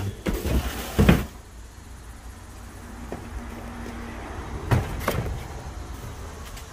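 Boxes of fireworks being moved and set down: a short rustle, a loud knock about a second in, and two more knocks near five seconds.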